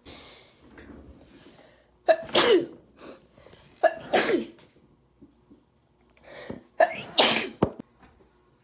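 A girl sneezing three times, about two seconds apart, each sneeze a short "ah" followed by a loud burst.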